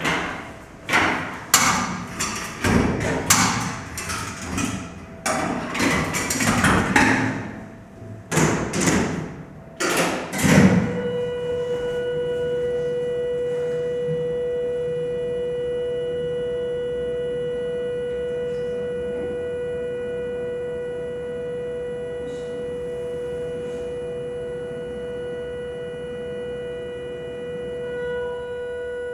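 Paint cans being loaded and clamped into Galileo and GA450 paint mixers: a run of knocks, thumps and clanks, with doors shutting, for about the first eleven seconds. Then the mixers start and run with a steady motor hum and a steady whine.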